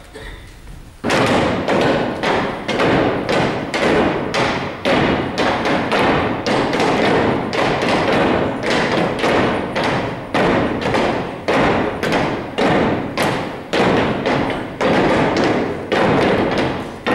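Wooden staffs thumped on a wooden dance floor in a steady beat, about two knocks a second, starting about a second in.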